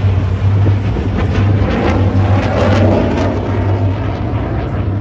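Steady jet engine noise from four fighter jets flying in formation, fading slightly near the end as they fly away.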